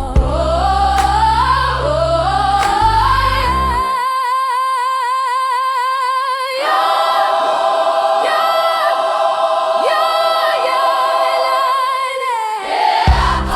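Choir singing a wordless passage: a rising melody over a bass line, then the voices hold long notes with vibrato, unaccompanied, until the band comes back in near the end.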